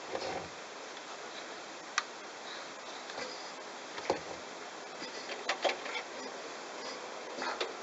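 Bosch washing machine washing a load of towels: a steady hiss of the drum and water, with a few sharp clicks and knocks from the tumbling drum.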